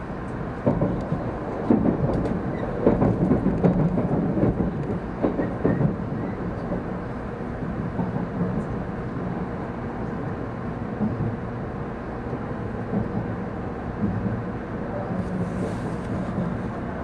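700 series Shinkansen heard from inside the car, running at low speed into a station: a steady rumble, with a run of irregular heavy knocks over the first six seconds or so as the wheels cross points, then a smoother, even rumble.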